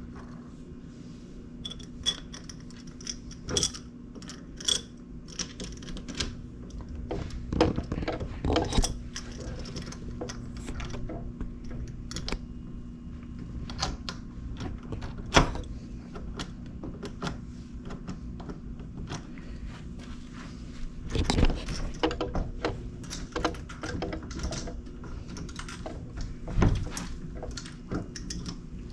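Metal door-knob hardware being fitted and screwed together by hand: irregular small clicks and rattles with a few louder thunks, over a steady low hum.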